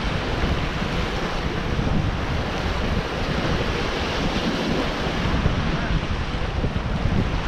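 Sea waves washing against shoreline rocks, with wind buffeting the microphone; a steady, even rush.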